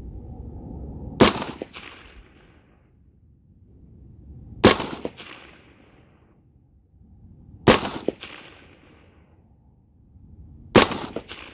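AR-15 rifle with an 18-inch barrel firing 75 grain Hornady match ammunition: four single shots about three seconds apart, each a sharp crack with a fainter second report just after it and a short fading tail.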